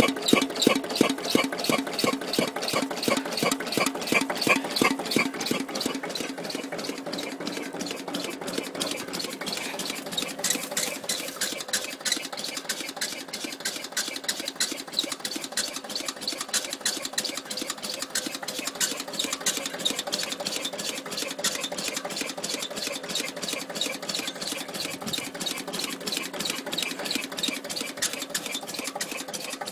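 Lister CS 6/1 single-cylinder diesel engine running with an even, rhythmic beat, and a squeak from its dry oil pump arm. The beat is louder for the first few seconds, then settles steadier and a little quieter.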